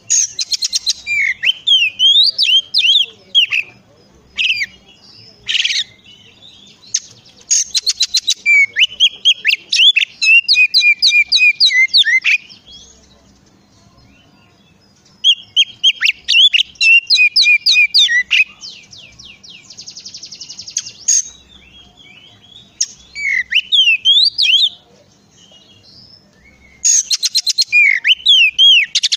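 Oriental magpie-robin (kacer) singing loud, varied whistled phrases mixed with rapid chattering trills. It sings in bursts, with two pauses of a couple of seconds, one near the middle and one near the end.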